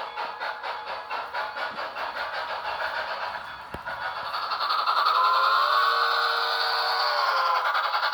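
Cab-forward steam locomotive running with a steady chuff of about three to four beats a second. About four and a half seconds in, a long, steady whistle chord starts and becomes the loudest sound.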